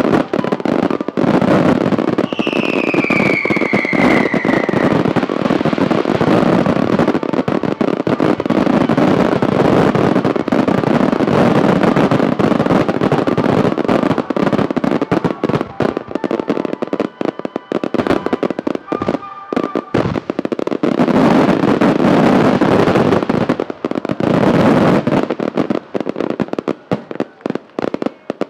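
Dense barrage of fireworks bursting and crackling, with a whistle falling in pitch about two seconds in. The crackling thins to scattered pops near the end.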